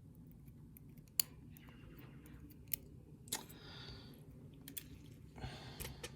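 Small sharp clicks and light scraping as tiny lock pins and springs are picked out of a pin-tumbler lock and handled during disassembly. A sharp click about a second in, another near the middle, then short bouts of faint scraping and rustling.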